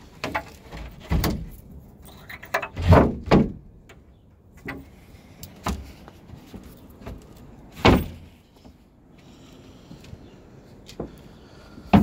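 Footsteps and knocks on a fiberglass boat's deck and cockpit floor: a few irregular thumps, the loudest about three seconds in and again near eight seconds.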